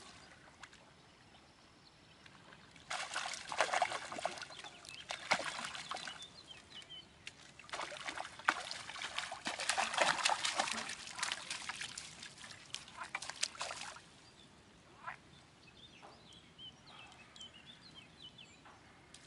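A hooked fish splashing at the surface of the river as it is drawn into a landing net, with water sloshing and dripping. The splashing comes in two spells, a short one about three seconds in and a longer, louder one from about eight to fourteen seconds, then dies down.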